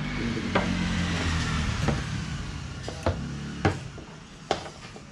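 Utensils clinking against a dinner plate, six or so short sharp clicks about once a second, over a low steady hum.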